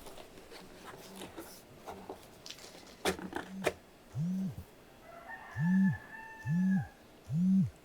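A vibration motor buzzing in short pulses of about half a second each, four times, every pulse rising and then falling in pitch. A few light taps come a little before the first pulse.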